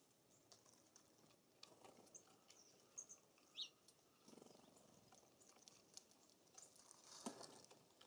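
Faint ticking and pattering of small songbirds feeding and hopping at seed feeders, with a few brief high chirps.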